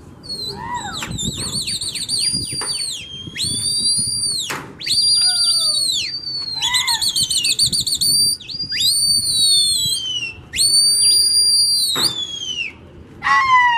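Loud, shrill human whistling, one whistle after another: long held notes, some warbled, many ending in a falling glide, with a quick run of short dropping notes near the end. It is the whistling pigeon flyers use to signal and drive their flock in the air.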